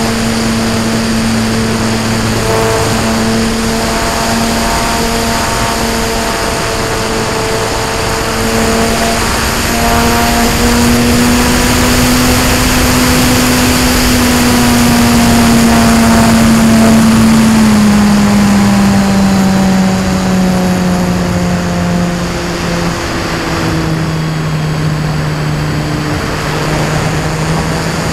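Electric motor and propeller of a Cularis motor glider, heard from a camera on board: a steady hum over loud wind rush. The hum's pitch drops in two steps in the second half as the motor slows.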